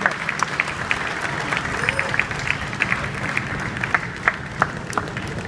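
Scattered applause from a crowd gathered on the street, many separate hand claps over a background of crowd voices, thinning out near the end.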